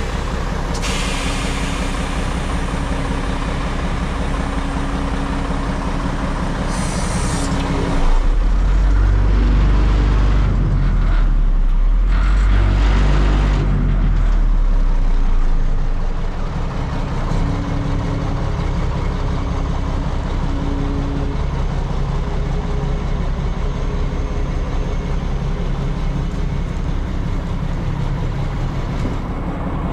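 A 2005 Mack dump truck's diesel engine idling steadily, with a louder low rumble from about 8 to 16 seconds in.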